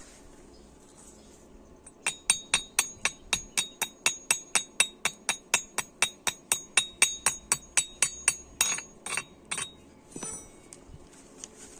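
Chipping hammer rapping on a steel weld to knock off the slag: fast, even metallic strikes, about five a second, each with a bright ring. Near the end they slow to a few single taps.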